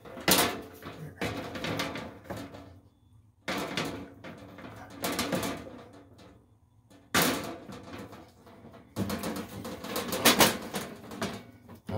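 Metal cover of an electrical breaker panel being worked into place by hand, scraping and clattering against the panel box in about five bursts with sharp clicks, as a bent tab keeps it from lining up.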